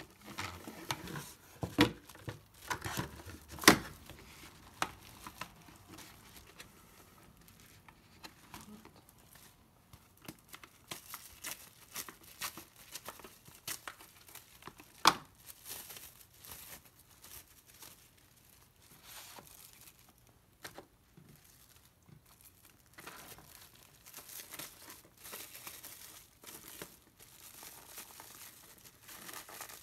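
Plastic wrap being pulled from the roll, torn off and wrapped around a cardboard burger box, crinkling and rustling under the hands. A few sharp knocks sound in the first four seconds.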